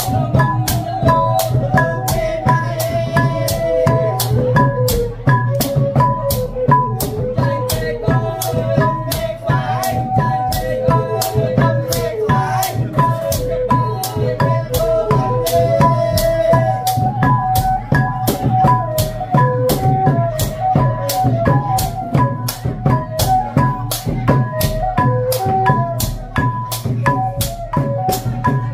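Khmer chhay-yam ensemble music: drums and rattling percussion beating fast and steadily under a wavering melody line, with a repeated ringing tone.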